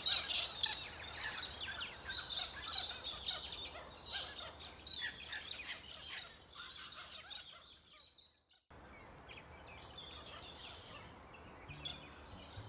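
Many small birds chirping and calling rapidly over one another, a busy outdoor chorus that cuts out abruptly about two-thirds of the way through. After a short silence the birdsong returns more faintly, and soft music begins near the end.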